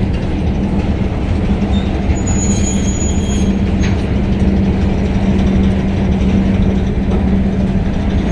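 EP1M electric locomotive running close by: a steady low rumble with a constant hum. A faint high metallic squeal comes in about two seconds in and fades out a second or so later.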